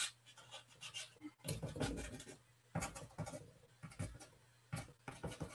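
Pastel being stroked across paper: short scratchy texturing strokes in several quick bursts, with brief pauses between.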